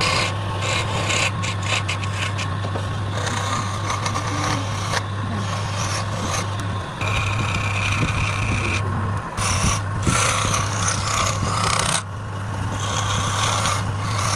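Wood lathe running with a steady low hum while a tool works the spinning wood in rasping bursts that start and stop. A steady higher whine joins in between about seven and nine seconds in.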